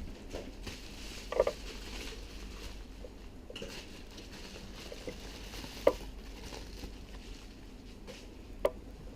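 Three sharp clicks with a few faint ticks between them, about a second and a half in, near six seconds and near the end, over a low steady hum: small handling sounds.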